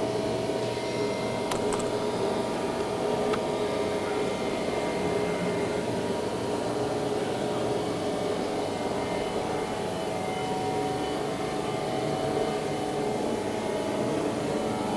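Steady hum of workshop background noise, with faint clicks once or twice in the first few seconds.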